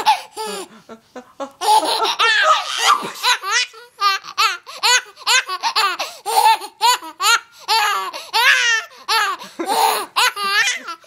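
Seven-month-old baby boy laughing in rapid runs of short, high-pitched giggles and belly laughs, set off by fake sneezes.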